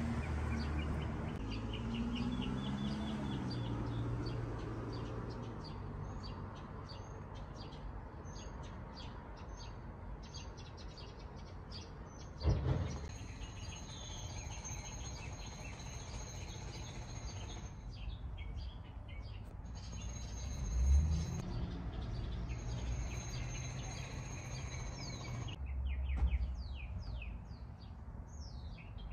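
Small birds chirping over and over, with a steady low rumble underneath. A thin high steady tone sounds through the middle stretch, and a single thump comes about twelve seconds in.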